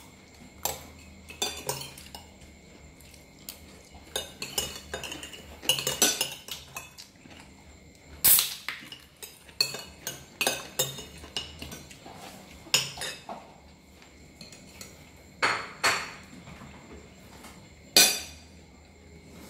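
Metal spoons clinking and scraping on plates as people eat, in irregular knocks, the loudest about eight seconds in and again near the end.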